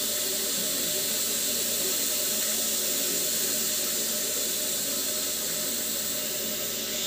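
Pressure cooker venting steam in a steady hiss as its whistle weight is held up with a spatula, letting the built-up pressure out.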